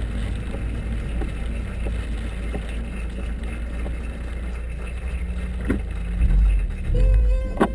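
Inside a Mini Cooper driving on a wet road in the rain: a steady low rumble of engine and tyres on wet pavement, with the windshield wipers sweeping. Near the end a steady tone comes in and there is a sharp click.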